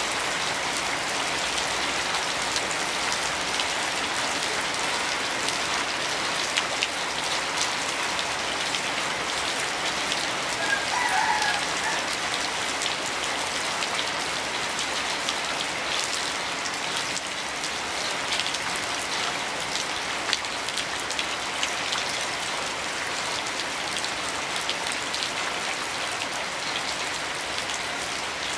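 Heavy rain falling steadily, a dense even patter of individual drops on a hard surface.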